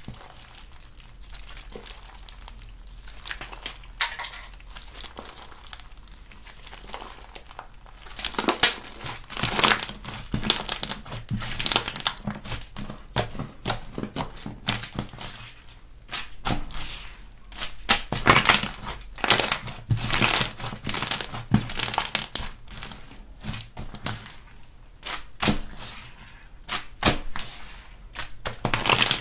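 Slime being squished and pressed by hands, making a dense run of crackling, popping clicks. It is fainter for the first several seconds and gets much louder from about eight seconds in.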